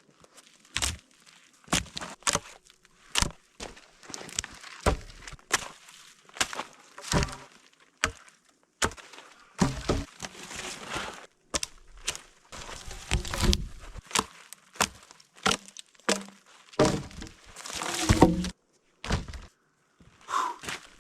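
Dead wood being chopped and broken up: a run of irregular sharp cracks and thuds, roughly one or two a second.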